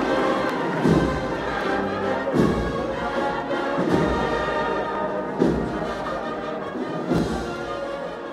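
Brass band music: a slow, solemn march with held brass chords and a heavy bass drum beat about every second and a half, typical of a Holy Week processional march. It begins to fade near the end.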